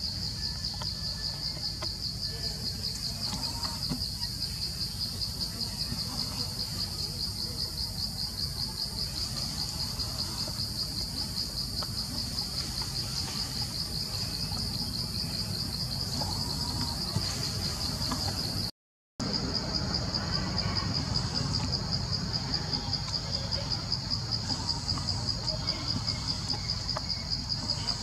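Forest insect chorus: a continuous high-pitched, rapidly pulsing trill over a low rumble, cutting out for a moment about two-thirds of the way through.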